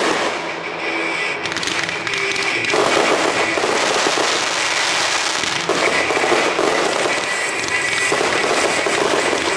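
Consumer fireworks finale: a dense, unbroken barrage of aerial bursts and crackling from cakes and mortars firing together.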